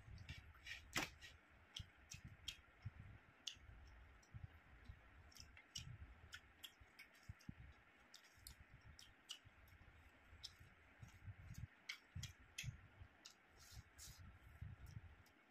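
Faint eating sounds: scattered clicks and smacks of chewing, with fingers mixing rice and curry on a plate. The sharpest click comes about a second in.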